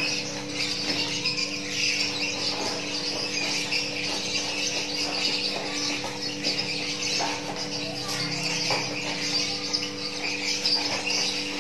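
Small birds chirping continuously in the background, over scattered rustles and snips as a taped cardboard box is cut open with scissors, with a steady low hum underneath.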